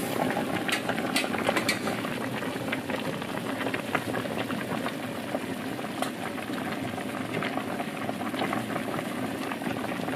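Water boiling in a pot of bamboo-leaf-wrapped zongzi rice dumplings: a steady bubbling full of small crackling pops.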